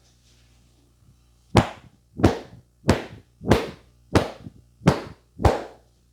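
Seven sharp hand slaps in an even rhythm, about one and a half a second, beginning about a second and a half in: a barber's percussive slapping strokes during a massage.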